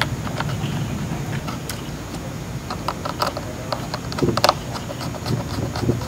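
Scattered light clicks and taps as a circuit board and screwdriver are handled against an opened laptop's chassis, the sharpest click about four and a half seconds in, followed by a few duller knocks.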